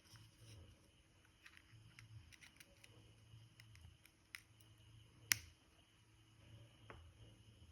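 Near silence with a few small, sharp clicks, the loudest about five seconds in, over a faint steady hiss.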